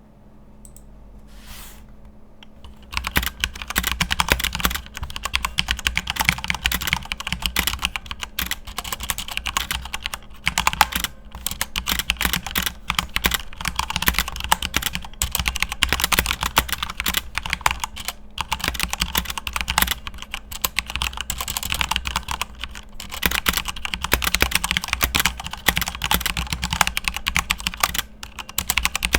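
Continuous fast typing on a Corsair K70 mechanical keyboard with Cherry MX Red linear switches: a dense, rapid clatter of keystrokes that starts about three seconds in and eases off near the end.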